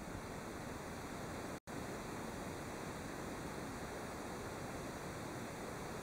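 Steady, even hiss of room tone, cutting out completely for an instant about a second and a half in.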